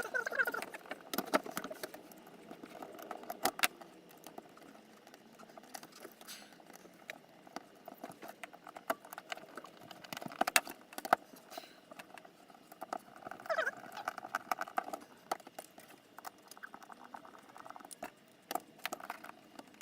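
Irregular small clicks, taps and scrapes of a screwdriver and small bolts being worked into a servo's plastic mounting bracket, in fits and starts.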